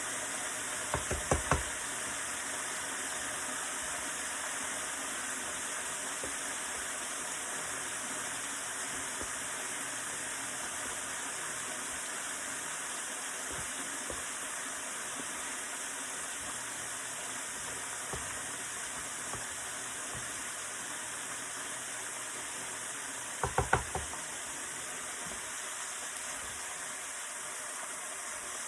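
Chicken wings deep-frying in hot grease: a steady sizzle. Two quick clusters of sharp knocks cut through it, one about a second in and one about three-quarters of the way through.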